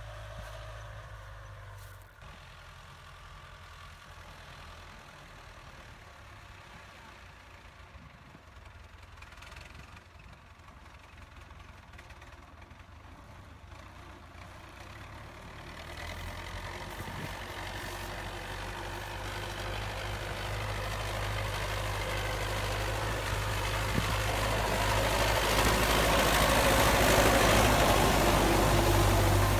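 Belarus 820 tractor's four-cylinder diesel engine running steadily under load while pulling a plough. It is faint at first, then grows steadily louder from about halfway as the tractor comes closer, and is loudest near the end.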